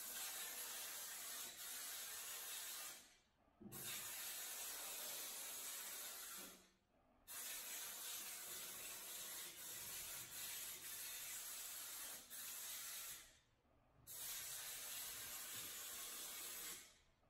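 Stone guard coating being sprayed inside a car door: a steady hiss of spray in four long bursts. The bursts are separated by short pauses, each starting sharply and trailing off.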